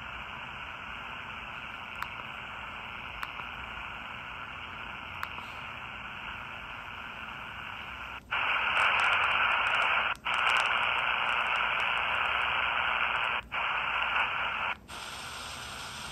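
Static hiss from a miniature 4732 shortwave radio's speaker, with no station coming through, a sign of its poor reception. A few faint ticks sound early, then about halfway through the hiss jumps much louder for several seconds, cutting out briefly twice, before dropping back to the quieter level.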